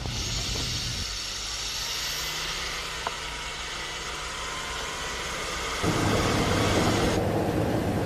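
Oshkosh JLTV with chained tyres driving through deep snow: engine running under a steady hiss of spraying snow. About six seconds in, a louder, lower engine rumble of a heavier vehicle takes over and the hiss fades out.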